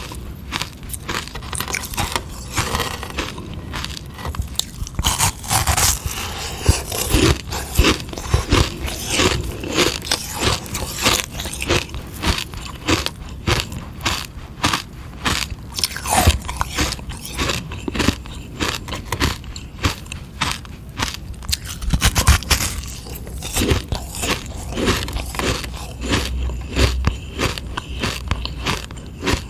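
Close-up crunching and chewing of a frozen sugar-water ice lolly, with many quick, irregular sharp cracks as the ice is bitten and ground between the teeth.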